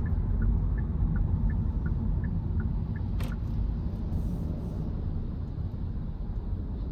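A car's steady low road-and-engine rumble while driving. A light ticking, about three ticks a second, runs until about three seconds in and ends with a sharp click.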